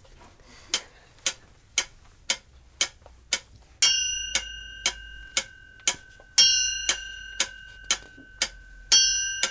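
Clock ticking about twice a second, then striking three chimes about two and a half seconds apart, each ringing on and fading under the ticks: a clock striking midnight.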